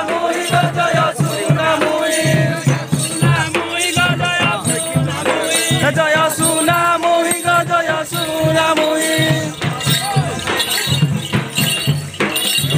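Odia Danda Nacha folk music: steady drum beats with rattling percussion under a held, wavering melody line.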